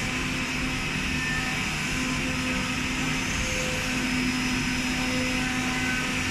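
CNC fabric knife-cutting machine running: a steady mechanical drone, with faint motor tones that come and go as the cutting head travels over the fabric.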